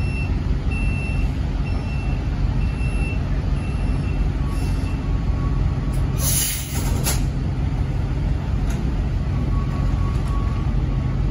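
Diesel engine of a semi-truck running as it backs a trailer into a parking spot, with a backup alarm beeping evenly for the first few seconds. About six seconds in comes one loud burst of air hiss from the air brakes.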